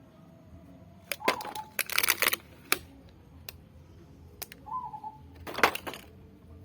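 Irregular sharp clicks and short rattling clatters, the loudest about two seconds in and again near the end, with two brief high chirps or squeaks between them.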